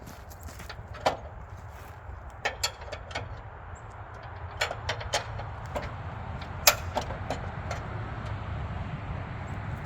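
Scattered sharp clicks and knocks of hand work on a sawmill being set up, over a steady low rumble.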